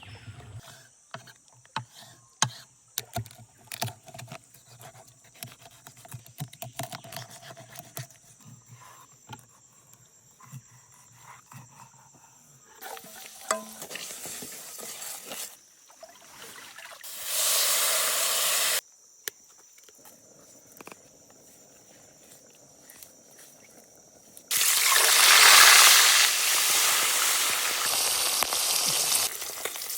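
Scattered clicks and knocks during the first half, then two short spells of hiss, and from about three quarters of the way in a loud, steady sizzle of fish frying in hot oil.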